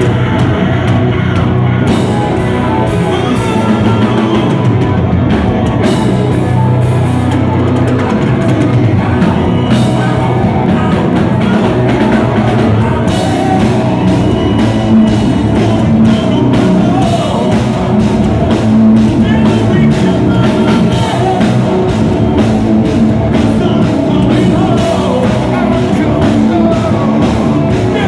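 A rock band playing loud and live: double-neck electric guitar, keyboards and a drum kit, with a male lead singer singing over them at times.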